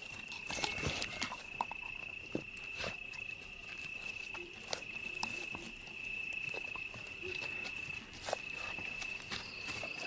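A cricket's steady, unbroken high trill, with scattered short clicks and soft knocks over it.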